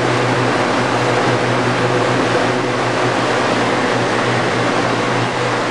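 An electric blower running steadily: a loud, even rush of air over a low hum.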